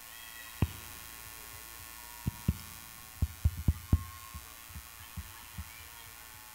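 About a dozen short, dull low thumps at irregular intervals, one about half a second in and the rest bunched in the middle, the loudest a quick run of four or five, over a faint steady hum.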